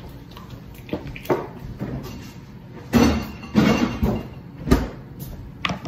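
A run of knocks and thumps from household things being handled and set down. The three loudest come about halfway through, with lighter taps before and after.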